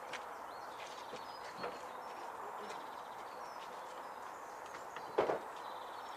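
Small birds chirping over open-air ambience, with a faint knock about one and a half seconds in and a louder double clunk about five seconds in as red bricks are set down in the back of a van.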